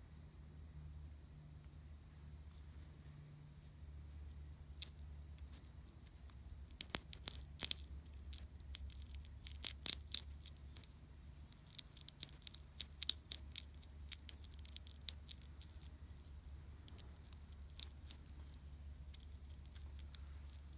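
Irregular sharp clicks and crackles, bunched in the middle seconds, as of dry leaf litter being stirred, over a steady high drone of insects.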